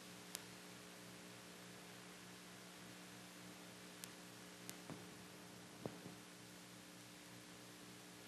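Near silence: steady electrical hum and hiss of an old videotape recording, with a few short faint clicks, the strongest about six seconds in.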